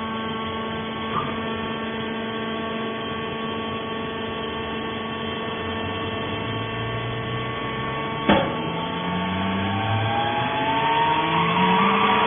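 Fibre baler's electric motor and hydraulic pump running with a steady hum. There is a light click about a second in and a sharp knock about eight seconds in, and then the machine's pitch rises and shifts as it gets louder near the end.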